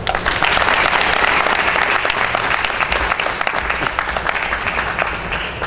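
Audience applauding: a dense patter of hand claps that starts abruptly and thins out near the end.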